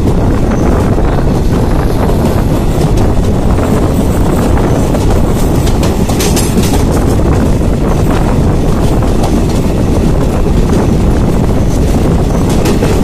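Train rolling along a station platform, heard from aboard: a loud, steady rumble of wheels on the rails, with a brief clatter about six seconds in.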